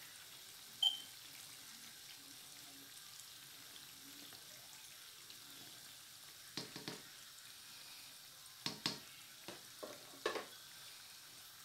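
Lentil fritters deep-frying in oil in a wok, a steady low sizzle, with a slotted spoon clicking and scraping against the pan a few times, mostly in the second half, as the fritters are turned.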